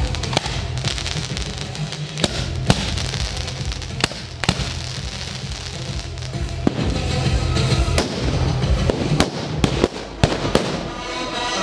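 Firecrackers going off on the ground: about a dozen sharp bangs at irregular intervals, amid the hiss of burning flares, with music underneath.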